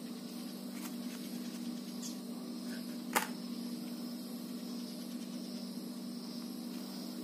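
A chilled chocolate bar with roasted cashews is broken apart by hand, giving one sharp snap about three seconds in, with a few faint clicks of handling before it. A steady low hum runs underneath.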